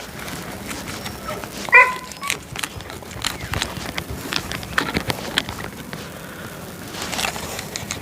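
A single short animal call about two seconds in, then a run of scattered light clicks and knocks.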